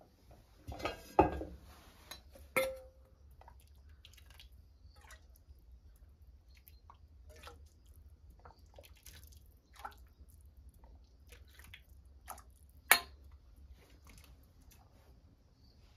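A metal pot lid clattering and then set down with a ringing clank, followed by a ladle scooping broth from the pot and pouring it into a metal bowl: small splashes, drips and light clinks, with one sharp clink of ladle on metal near the end.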